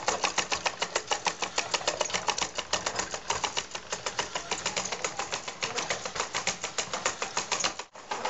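Wood-and-metal automaton mechanism running, its cams, cranks and linkages making a rapid, even clicking clatter of about seven or eight clicks a second, with a brief break near the end.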